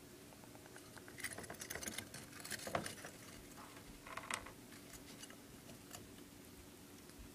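Dwarf hamster scrabbling in its wire-and-plastic cage: a run of light clicks and scratches starting about a second in, strongest near three seconds, then a short cluster again around four seconds, over a faint steady hum.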